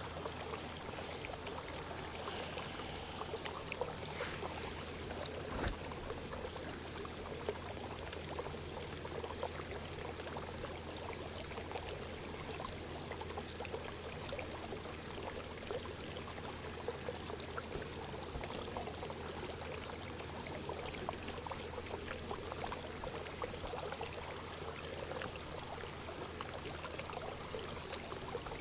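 Steady sound of running, trickling water, like a small stream or fountain, with a few faint ticks.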